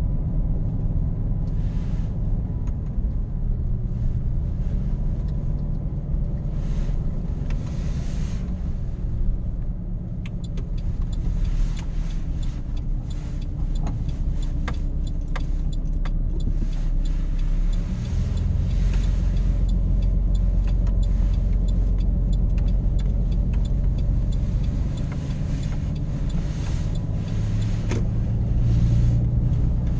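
Truck running with a continuous low rumble, a little stronger in the second half, with scattered faint clicks and crackles in the middle.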